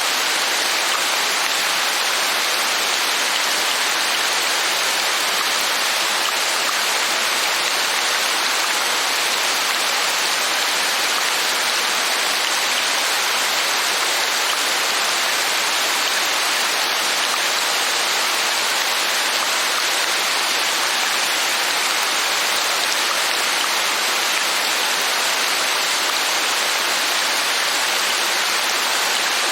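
Steady rainfall: an even, unbroken hiss of rain, with no single drops, thunder or other events standing out.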